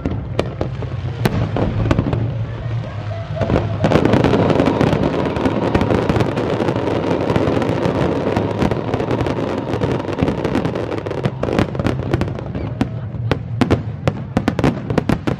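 Fireworks display: rapid shell bursts and crackling, merging about four seconds in into a dense continuous barrage that thins back to separate bangs near the end.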